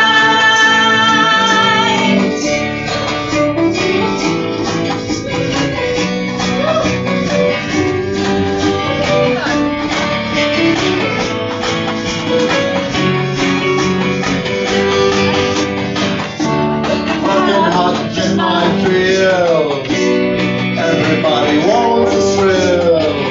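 Live band of strummed acoustic guitars with a group of singers; a long held chord ends about two seconds in and the strumming and singing carry on.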